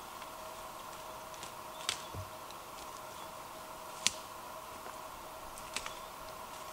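Quiet forest ambience: a steady faint high hum with a few sharp ticks, the loudest about four seconds in and others about two seconds before and after it.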